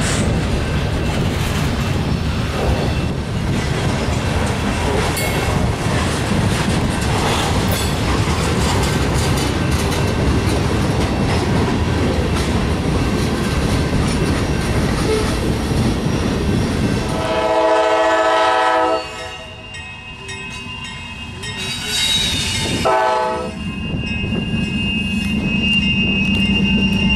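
Freight cars, coil cars and covered hoppers, rolling past with steady wheel clatter and rumble. About two-thirds of the way in, a locomotive horn sounds for a second or two; after a quieter lull there is a second short horn note, then a steady hum.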